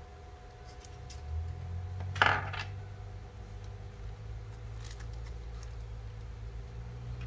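Zhiyun Smooth 4 gimbal's motors giving a low steady hum as the gimbal turns the phone, with one sharp click a little over two seconds in.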